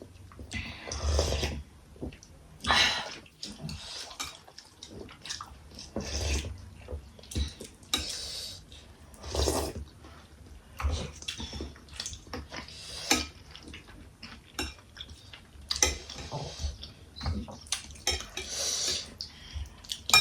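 Close-up eating sounds from momos and soup: wet slurps and mouth smacks coming every second or so, with light clinks of plates and spoons between them.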